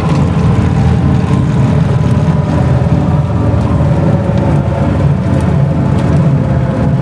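Single-engine propeller plane's engine and propeller heard from inside the cabin as the aircraft rolls along the runway: a loud, steady drone with a regular low pulsing beat.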